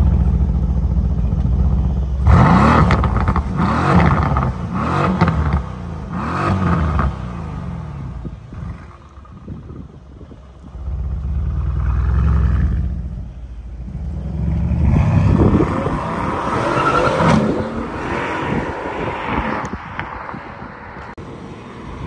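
Mercedes-AMG C63 S Coupe's twin-turbo V8 revved through its quad exhaust, the note sweeping up and down in two spells of blips with steadier low running between them. A few sharp pops crack out among the revs.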